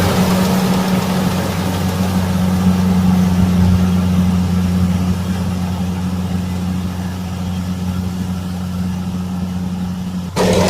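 Kubota rice combine harvester's diesel engine running steadily with a low, even hum. Near the end the sound breaks off abruptly and comes back louder.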